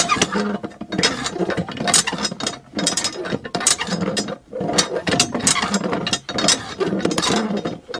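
A small mechanism clicking and rattling in repeated bursts, with short breaks about every couple of seconds.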